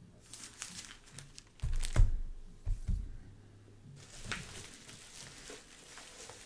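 Plastic comic-book sleeves and packaging crinkling and rustling as they are handled, with two dull thumps about two and three seconds in, the first the loudest.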